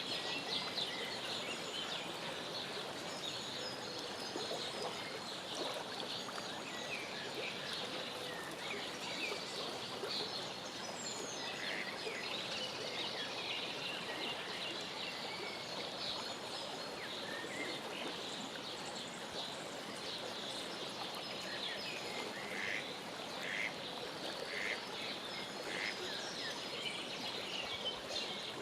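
Mallard ducklings peeping in short, high chirps, scattered and thickest in the second half, over a steady background hiss.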